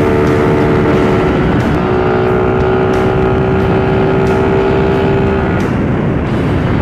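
Suzuki Raider R150 motorcycle's single-cylinder engine running steadily at cruising speed, with wind and road noise on the microphone. Its pitch steps down a little just under two seconds in, and the engine note fades into the wind near the end.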